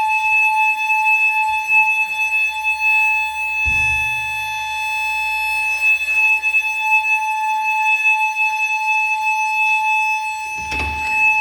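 Tower-block landing fire alarm sounding continuously: a loud, steady high-pitched electronic tone, heard through an open flat door. Low thumps about four seconds in and near the end.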